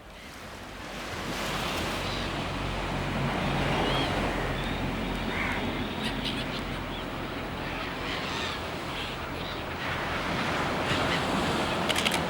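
Sea waves washing, with wind buffeting the microphone; the sound swells over the first couple of seconds and then holds steady. A few sharp clicks come near the end.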